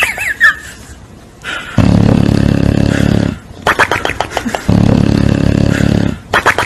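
Bulldog snoring loudly in its sleep: two long, low rumbling snores, each followed by a quick rattling sputter.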